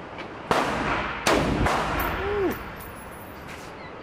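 Two rifle shots in an indoor shooting range, about a second apart, each a sharp crack followed by an echoing boom off the range walls.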